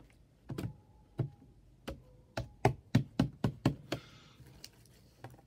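Slime being pressed and patted by hand on a hard surface: a string of about ten sharp taps and knocks, coming quicker between about two and four seconds in.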